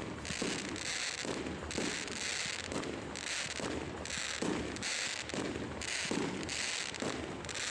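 Aerial fireworks going off in quick succession: dull booms of bursting shells roughly once a second, with bouts of sizzling crackle from crackling stars between them.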